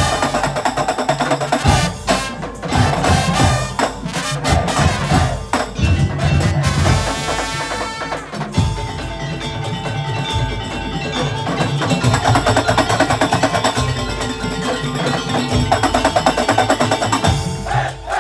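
Madurese tong-tong (daul) percussion ensemble music: wooden slit drums and drums keep a driving rhythm under a melodic line. The low drums drop out for about two seconds near the middle, then return.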